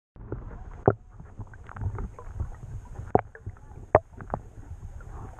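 Muffled underwater sound picked up by a camera in its waterproof housing: a low, steady rumble with scattered clicks and knocks, the sharpest about a second in and again around three and four seconds in.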